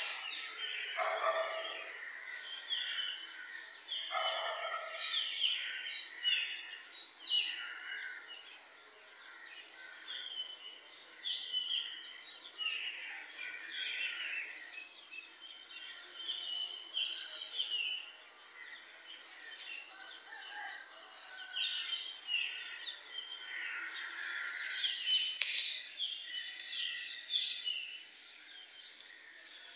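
Birds chirping: a dense, continuous run of short high calls, with a couple of lower, louder sounds in the first few seconds.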